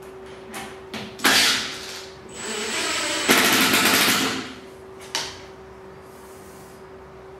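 Makita 18 V cordless impact driver driving screws through a metal drawer slide into chipboard. A short burst comes about a second in, then a longer run near the middle that turns loud and rattling for about a second as the screw seats. A short knock follows about five seconds in.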